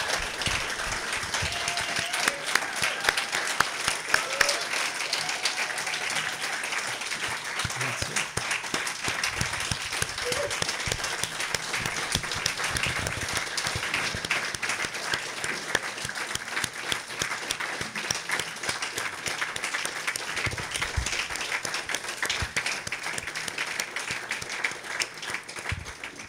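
Audience applauding: a long, steady round of clapping from a seated crowd in a hall.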